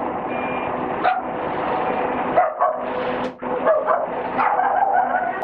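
A dog barking several times at uneven intervals over a steady low hum.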